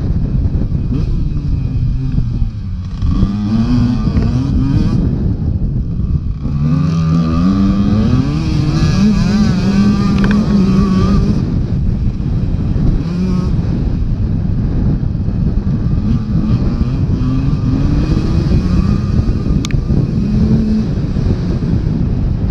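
A KTM dirt bike's engine revving hard under load, its pitch climbing and then dropping again several times as the rider shifts and rolls on and off the throttle. Wind rushes over the microphone throughout.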